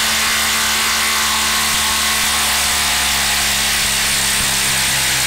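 Milwaukee Fuel 1/4-inch impact driver hammering steadily as it drives an 8-inch screw into a wooden log round. The driver is under heavy load, which the owner says makes its anvil skip.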